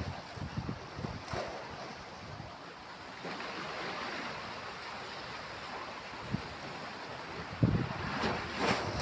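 Sea waves breaking and washing up the beach. The wash builds about three seconds in and surges again near the end, with wind buffeting the microphone in low rumbles.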